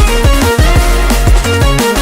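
Electronic dance music with a steady beat and sliding bass drums, in an instrumental stretch of the song.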